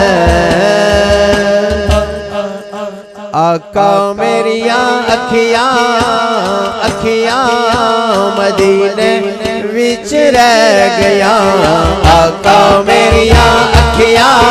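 A man singing a Punjabi naat, drawing out long melismatic phrases with vibrato, over a low drum beat that drops out about two seconds in and returns near the end.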